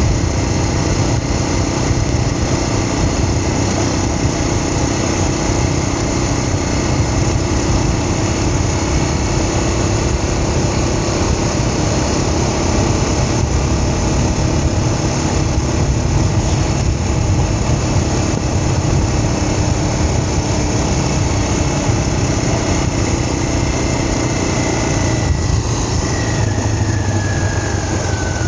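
A vehicle's engine running steadily under way, with a dense rush of road noise; a whine falls in pitch over the last few seconds.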